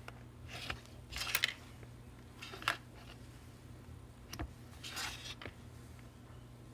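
Thin opening tool slicing through the adhesive between an iPhone 7's screen and frame: a few short scrapes and clicks, over a steady low hum.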